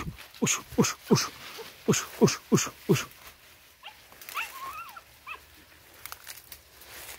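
Young Vietnamese native hunting dog barking in short quick yaps, about two a second, each dropping in pitch, for the first three seconds. A few faint, higher whines follow about four seconds in.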